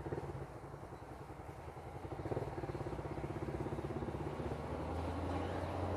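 Motorcycle engine running while riding, growing louder about two seconds in and then holding a steady pitch.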